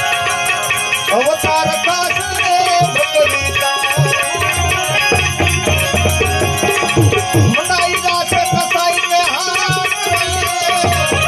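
Gujarati devotional bhajan music with tabla keeping the rhythm under a continuous melodic accompaniment.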